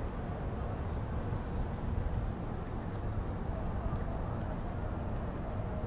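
Steady rumble of road traffic on a city road running beside the walkway.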